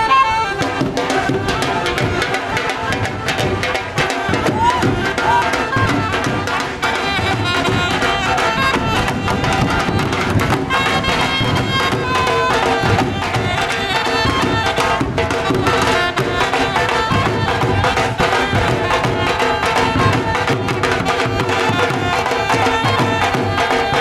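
Dhol drums playing a bhangra rhythm live, with a melody line carried over the drumming.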